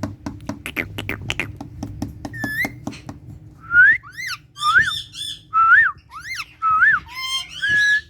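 Indian ringneck parakeet vocalising: a quick run of clicks for about three seconds, then a string of short, loud whistles that sweep up and down in pitch.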